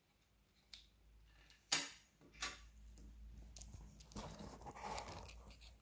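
Faint handling noises on a tabletop: three sharp clicks or taps in the first two and a half seconds, then soft rustling near the end.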